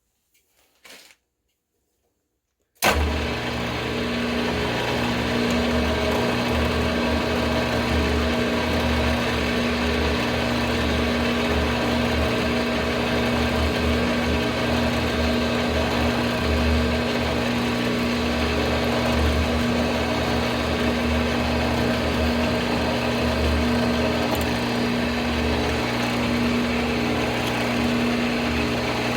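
Mill-drill motor starting suddenly about three seconds in and running steadily with a hum while a number 11 drill bores a cross hole through 3/8-inch rod stock; it begins to wind down at the very end.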